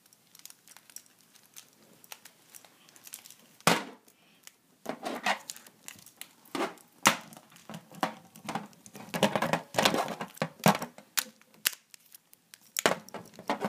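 Toy wrestling figures handled and knocked against a toy wrestling ring: irregular plastic knocks, clatter and rustling in a small room, with one sharper knock about four seconds in.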